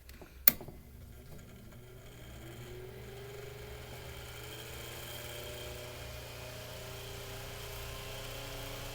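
A click about half a second in, then the freshly oiled motor of a Mainstays 9-inch high-velocity fan hums and slowly spins up, its whir rising in pitch and growing louder as the blade builds up speed.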